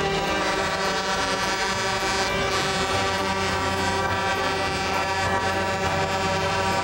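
Many truck air horns blowing together in a long, steady chord of held tones at several pitches.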